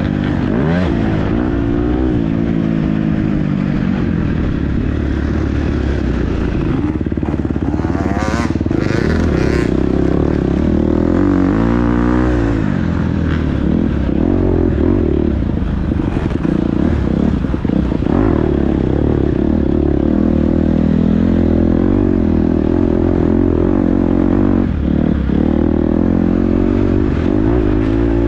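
Dirt bike engine recorded on board, revving up and down again and again as the throttle is worked, with rattling from the bike.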